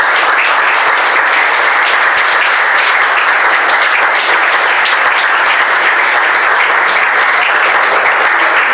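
Audience applauding: loud, steady clapping at the close of a speech.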